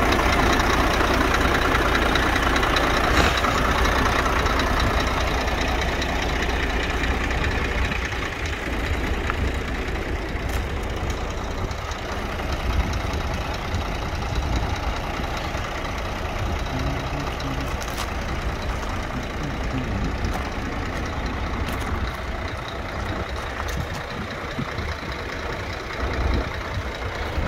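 Scania P114 380 truck's straight-six diesel idling steadily. It is louder at first and drops back a little after about seven seconds.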